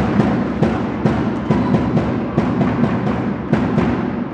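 Music with a heavy drum beat playing loud in a sports hall, fading down near the end.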